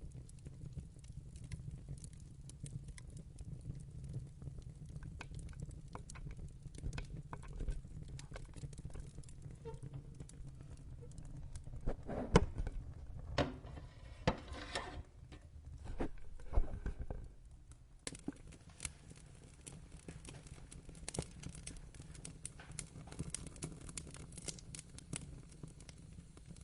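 Wood fire crackling, with sharp snaps and pops over a steady low rumble of the flames, and a burst of louder pops about halfway through.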